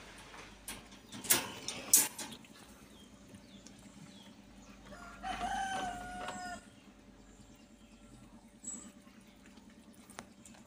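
Two sharp knocks about a second in, then a rooster crowing in the background about five seconds in, one long drawn-out call.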